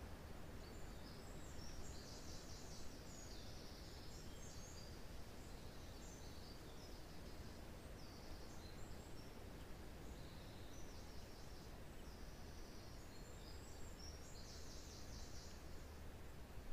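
Wind rushing through pine trees as a steady, faint hiss. Small forest birds twitter in quick high chirps on and off throughout.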